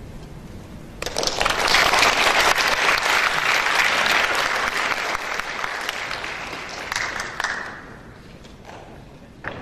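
Audience applauding, breaking out suddenly about a second in and dying away after about seven seconds.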